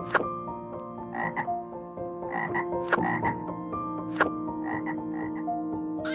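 Short animal calls repeated in quick bunches, with a few sharp clicks, over soft background music with long held notes.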